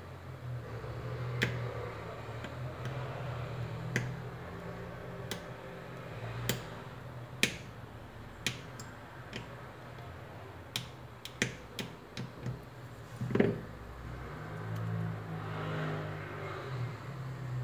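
Sharp, irregular small clicks and ticks of a metal pick working on a smartphone's tiny power-button flex and its dome switch, during the cleaning of oxidation from inside the switch. There is a quick run of clicks about two-thirds of the way through, over a low steady hum.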